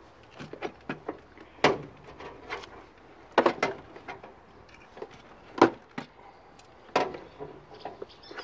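Irregular clicks and knocks of hands handling plastic and metal parts and wiring in an engine bay, with four louder knocks spaced about one and a half to two seconds apart among lighter ticks.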